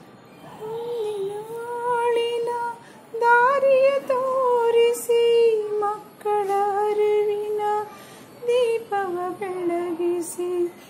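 A woman's voice singing a Tulasi devotional song, drawing out long sliding notes in phrases with short breaths between them.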